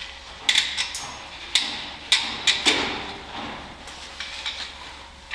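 Hands fitting a rubber dust boot over a brake caliper piston: a run of sharp clicks and snaps, about seven in the first three seconds, then a few fainter ones a little past four seconds in.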